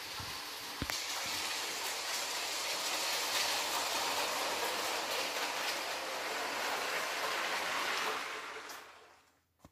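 Modified Lego 2018 passenger train running on plastic Lego track: a steady rolling rattle of its wheels and motor that grows louder after a sharp click about a second in and fades away near the end. It runs on original Lego axles, which the owner hears not rolling as well as they should.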